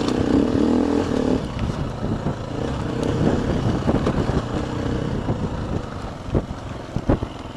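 Dirt bike engine running at low speed on a bumpy, rocky dirt track, with knocks and rattles as the bike goes over rocks and two sharp knocks near the end.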